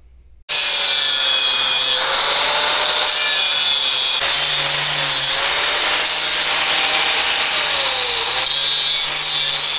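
DeWalt angle grinder with a cut-off wheel cutting through the J-bar's steel tube to take off the welded-in heim end. It starts abruptly about half a second in and runs loud and continuous, with the motor's whine dipping slightly now and then as the wheel bites.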